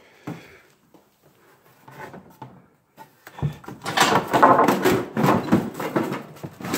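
Pine 2x4 boards being handled and shifted, wood scraping and knocking against wood in quick, clattering strokes. A few faint clicks come first, and the handling grows loud about three and a half seconds in.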